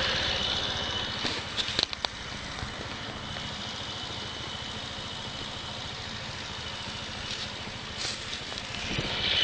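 Iron Fist 125 motorcycle engine idling while standing still, recorded for an abnormal noise it makes. A few sharp clicks come about two seconds in, after which the idle settles a little quieter.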